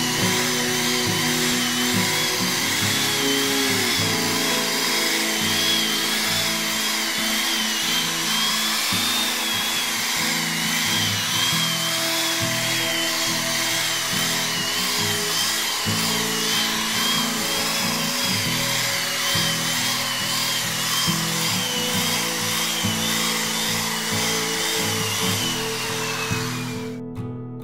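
A machine polisher running with its buffing pad on a painted motorcycle fuel tank. Its whine wavers up and down over background music and stops just before the end.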